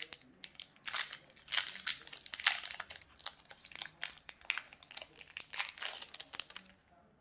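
Foil wrapper of a Magic: The Gathering collector booster pack crinkling as it is torn open and handled, a dense run of sharp crackles that stops just before the end.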